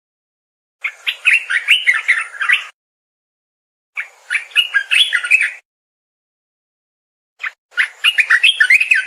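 Olive-winged bulbul (merbah belukar) singing: three short phrases of quick, bubbling notes, each lasting about one and a half to two seconds, with silent gaps between them. The last phrase is cut off at the end.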